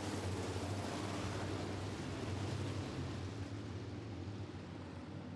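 A pack of dirt-track modified race cars running past at slow pace-lap speed, their engines giving a steady low drone that fades over the last couple of seconds as the field moves away.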